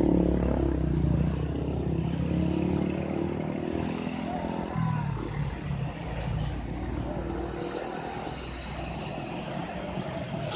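Traffic noise of loaded diesel trucks, cars and motorcycles moving slowly through a tight bend, a truck engine's low drone loudest at first and fading after a few seconds.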